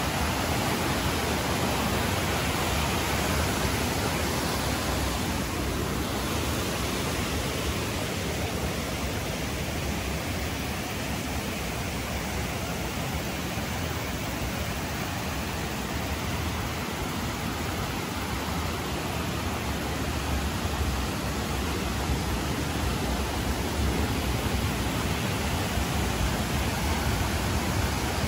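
Steady rushing of the Kibune River, a mountain stream, with wind rumbling on the phone's unshielded microphone.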